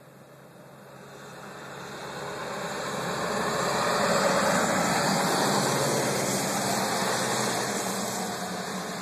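A vehicle driving past: a rushing tyre-and-engine noise that swells to a peak about halfway through and then fades.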